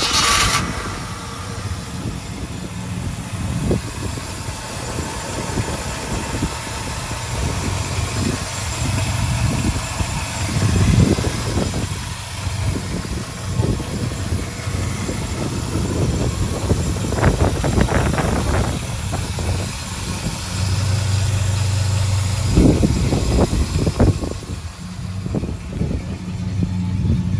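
A 1952 Ford F1 pickup's 350 cubic inch crate V8 starts up right at the beginning, then idles steadily, with a few brief swells in the note.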